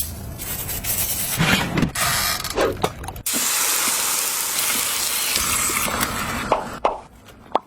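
Pork belly cooking: kitchen clicks and rattles, then about three seconds in a steady sizzling hiss that lasts about three and a half seconds and cuts off suddenly.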